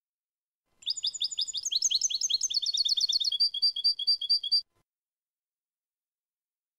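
European goldfinch singing one clean song phrase (canto limpio, free of foreign notes). It starts about a second in with a fast run of high twittering notes, turns into a string of evenly repeated two-note chirps at about six a second, and stops abruptly.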